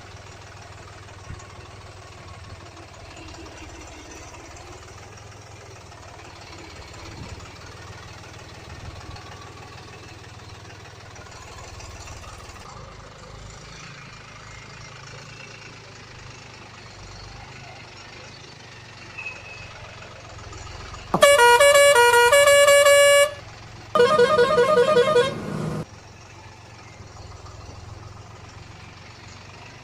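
Steady low machinery noise, then two loud vehicle horn blasts near the end: the first about two seconds long and stepping between several pitches like a short tune, the second warbling up and down.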